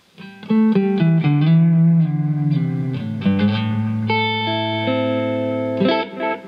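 Electric guitar played through a Caline Ghost Rain reverb-delay pedal: a quick run of single notes, then a held chord that is cut off near the end, leaving its delay repeats echoing on.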